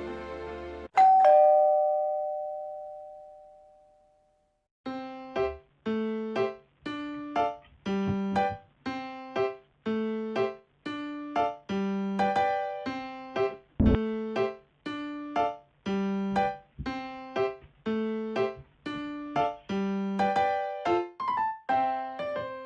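Background music: a held chord cuts off, a single bright chime rings out and fades over about three seconds, then after a short pause a light, bouncy keyboard tune starts with evenly spaced notes.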